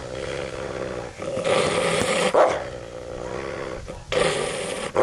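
Wolf hybrid growling and snarling in rough bursts, louder about halfway through and again near the end.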